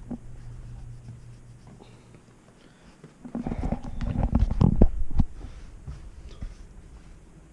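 A pet dog grumbling and growling low in play, with scuffling, for about two seconds in the middle.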